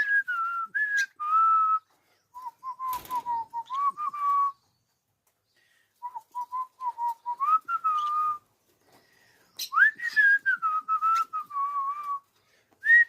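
Cockatiel whistling a tune in four short phrases separated by pauses. The clear notes step and slide up and down.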